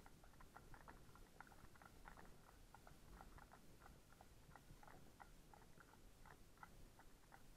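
Faint clip-clop of horses' hooves walking on a tarmac road: uneven clicks, several a second, from more than one horse, over a low rumble.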